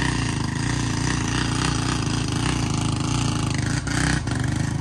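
Two single-cylinder motorcycle engines, an old Royal Enfield Bullet and a Hero Honda Splendor, held at steady high throttle and labouring under load as the roped-together bikes pull against each other. The note wavers slightly, with two short knocks near the end.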